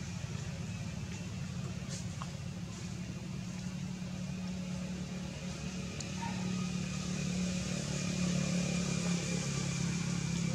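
Steady low motor-like hum, growing a little louder in the second half, with a few faint clicks.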